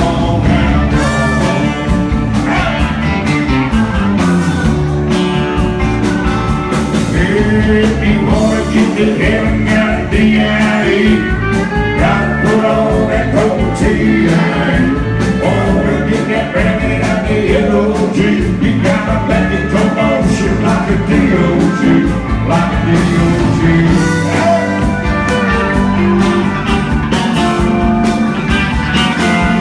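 Live country band playing loud and steady: electric guitar, pedal steel guitar, acoustic guitar, bass and drums, with sliding notes over the beat.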